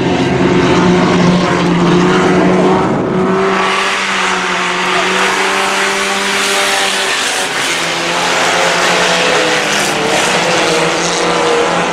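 Pro 4 race trucks' engines running at racing speed on a dirt oval as the pack passes, with a louder rush of engine and tyre noise as they come close about three seconds in.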